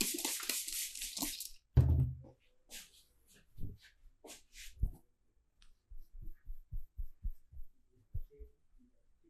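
Massage sounds from a barber's hands. Brisk rhythmic rubbing on skin stops about one and a half seconds in with one loud thump. Scattered soft pats follow, then a run of even soft thumps, about three a second, near the end.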